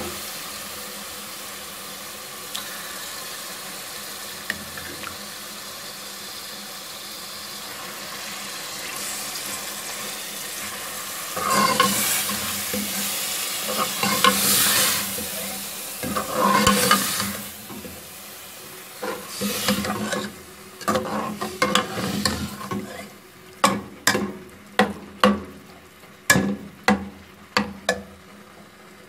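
Mashed boiled turnips and spinach sizzling in hot oil in a metal pot, then stirred and scraped with a steel spoon against the pan. Near the end there is a quick run of sharp knocks of the spoon on the pot.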